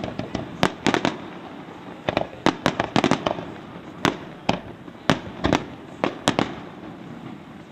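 Pains Fireworks aerial shells in a display, being launched and bursting. There are sharp bangs in quick, irregular succession, about two a second.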